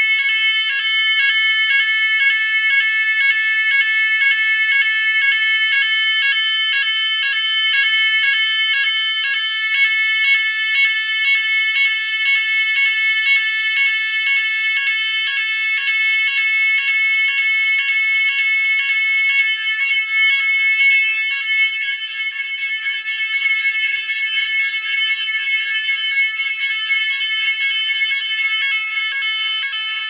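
Finsécur Buccin electronic fire-alarm sounder of a type 4 alarm, sounding the general evacuation signal during a test: a loud, high, rapidly pulsing alarm tone that repeats evenly without a break, slightly quieter from about two-thirds of the way in.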